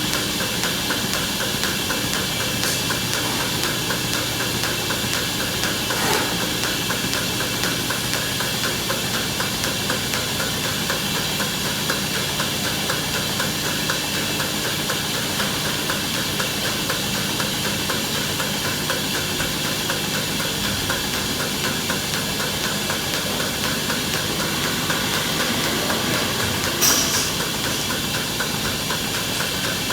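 Milking-parlor machinery running: a steady hiss and hum from the vacuum milking system, with a small knock about six seconds in and a sharp click near the end.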